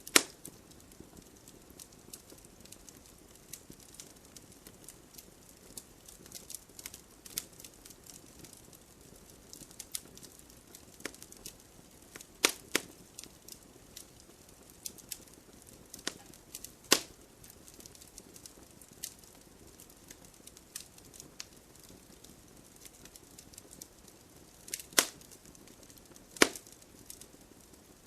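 Wood fire crackling: a steady scatter of small sharp crackles with a handful of louder pops from the burning wood.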